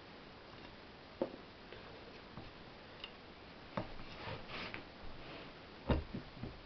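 Scattered light clicks and scrapes, then a louder knock near the end, from the metal end cover of an electric motor being rocked and pressed by hand to seat it over the rotor shaft's bearing. The cover will not go on over the bearing.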